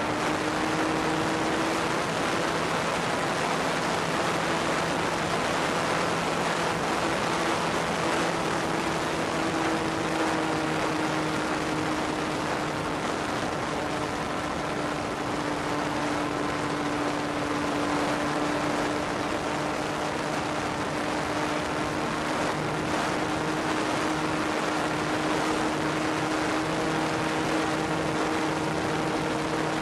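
The RC Ju-87B Stuka model's motor and propeller running steadily at full throttle, heard from the aircraft's onboard camera as a constant drone whose pitch wavers slightly, over a steady rushing hiss.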